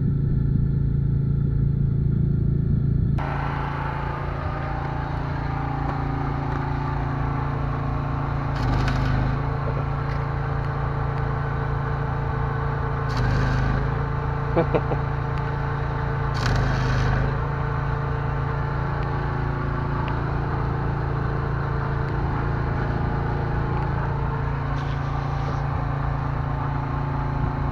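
An engine idling steadily, with a few short bursts of louder noise over it.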